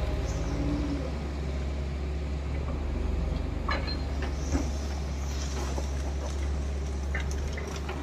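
Diesel engines of a JCB backhoe loader and a tracked excavator running with a steady low drone. From about four seconds in, short clatters and scrapes of rock and soil as the excavator bucket digs into the bank.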